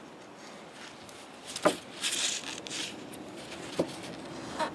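Faint handling noises: a few sharp clicks and a short rustle about two seconds in, as quick-setting epoxy is worked onto a broken closet rod.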